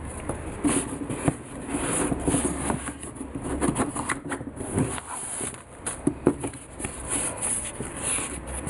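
Handling noise as knit sneakers are turned and pulled open in a cardboard shoe box: rubbing and rustling with many small knocks and clicks.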